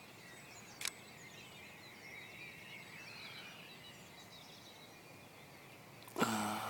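Faint birdsong, thin chirps and warbles over a quiet outdoor background, with one sharp click about a second in. A man's voice starts near the end.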